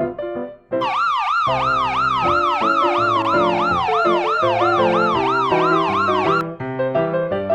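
Brazilian military police (PM) siren: a fast up-and-down yelp about three times a second, over a slower tone that falls and then rises again. It starts about a second in and cuts off suddenly near the end, with piano music underneath.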